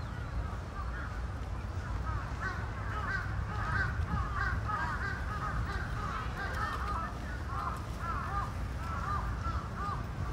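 Many birds calling at once: a dense, steady stream of short overlapping calls, over a low background murmur.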